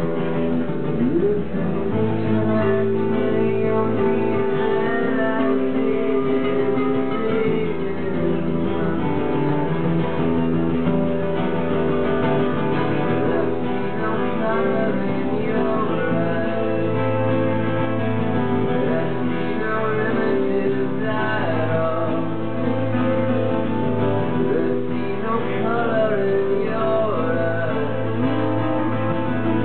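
Live acoustic music: an acoustic guitar strummed with a second guitar playing alongside, at a steady level.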